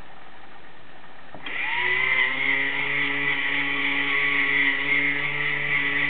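Small electric motor of a motorized Peco NB 55 model railway turntable starting up about a second and a half in. It rises briefly in pitch, then runs steadily with a whirring whine as it drives the bridge round to a new track position.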